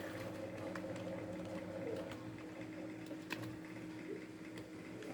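Steady electrical or machine hum, with a few faint clicks.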